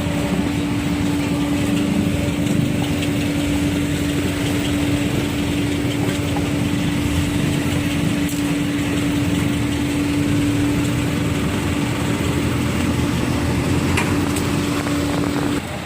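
A vehicle engine running steadily, with a constant hum that cuts off suddenly just before the end.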